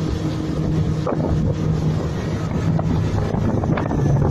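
Honda 80 hp four-stroke outboard motor running at speed, a steady engine drone that grows a little louder near the end, with wind buffeting the microphone.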